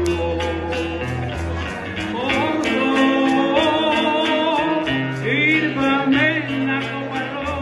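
Live bolero music: acoustic guitar with low bass notes underneath and a shaker ticking a steady beat about four times a second, with a voice carrying a melodic line at moments.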